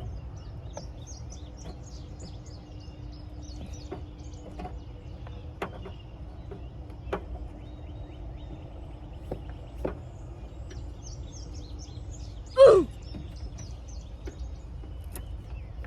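Birds chirping in the background, with scattered light clicks and one loud short creak about thirteen seconds in, as a car's plastic bumper is worked loose by hand.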